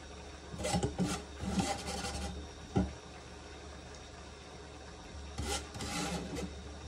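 Metal spoon scraping and tapping while scooping chopped red onion and dropping it into paper bowls. There are two stretches of short scrapes, each lasting about a second and a half, with a single sharp tap between them.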